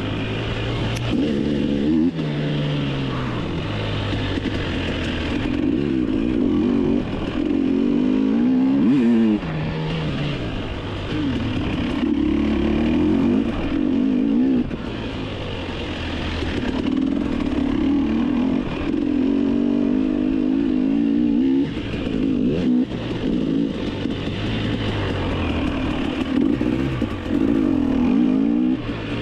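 KTM 300 single-cylinder two-stroke dirt bike engine under way off-road, its revs rising and dropping again and again with the throttle and gear changes.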